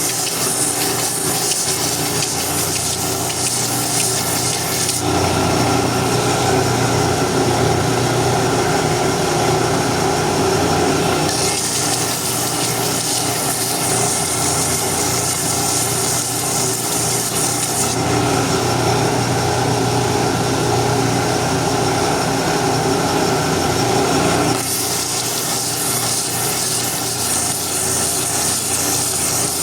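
Electric power tool, most likely a sander, running steadily while sanding wood, its sound shifting about every six seconds as the work is pressed against it and eased off.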